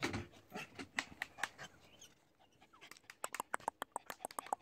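A quick, even run of sharp tongue clicks, about seven a second, starting about three seconds in, used to call a puppy over. A few softer clicks come before it.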